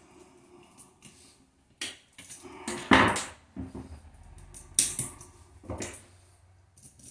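Hand tools and stiff copper wire being worked at an electrical outlet's terminal screws: scattered sharp clicks and metal clinks, the loudest a short rattle about three seconds in.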